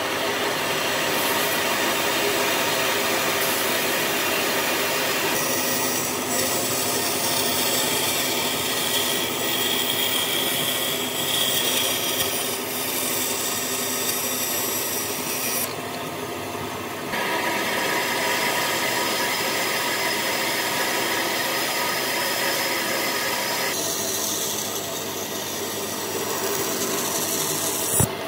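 Power tools running on wood, a steady noisy machining sound that changes character abruptly several times. A short sharp knock comes near the end.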